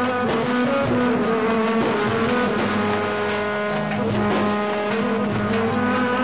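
Live Middle Eastern ensemble music with oud, qanun, electric saz, tambourine and keyboard: held drone notes over a steady percussion beat.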